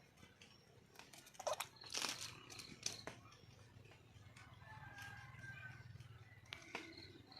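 Red junglefowl hen calling: a few short, loud calls about one and a half to two seconds in, then fainter drawn-out notes later on.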